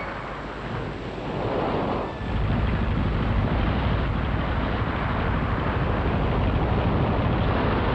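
Wind and the wash of the sea. About two seconds in, a steady low rumble joins them: a small motor boat's engine running as its hull pushes through the water.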